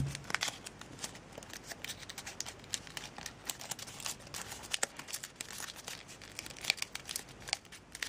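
A folded sheet of origami paper rustling and crinkling as it is handled and creased, with many small crackles and taps scattered throughout.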